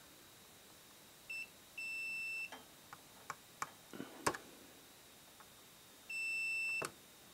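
A digital multimeter's continuity buzzer beeps three times as its probes touch the antenna connector's center pin and the RF chip on the radio's circuit board: a brief beep, then two longer ones, each under a second. The beeps signal that the repaired antenna connection has continuity. Small clicks of the probe tips on the board come between the beeps, the sharpest about four seconds in.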